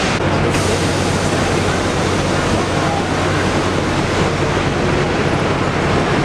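Steady, dense rumble of a crowd of passengers walking and rolling suitcases, with a low hum underneath.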